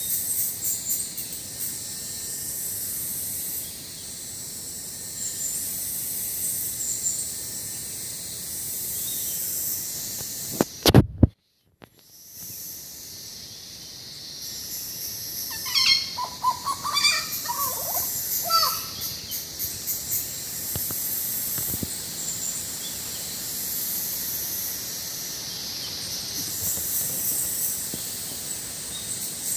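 Hooded butcherbird singing a short run of varied notes that jump in pitch, a little past halfway, over a steady high hiss of insects. Shortly before the song there is a sharp knock followed by a moment's dropout.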